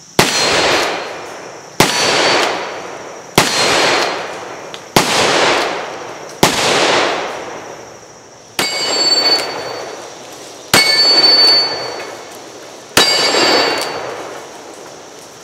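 Taylor's & Co. Tuned Smoke Wagon single-action .45 Colt revolver fired eight times, a shot about every one and a half to two seconds. From about eight and a half seconds in, each shot is followed by the ringing of a steel plate target being hit.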